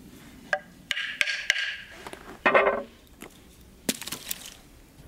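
Dry wooden knocks and clacks as a seasoned tan oak handle blank is handled and set down on a slate board, the loudest knock about two and a half seconds in.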